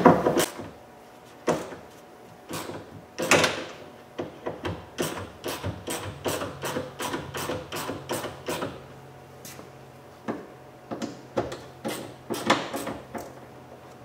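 Ratchet and socket clicking and knocking as 10mm bolts inside a pickup truck's door are loosened. The clicks come irregularly, with a quick run of them between about five and nine seconds in.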